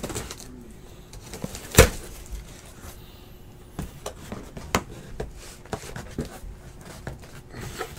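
Sealed trading-card hobby boxes being handled and moved on a stack: scattered taps and knocks of cardboard, with one sharper thump about two seconds in and another a little before five seconds.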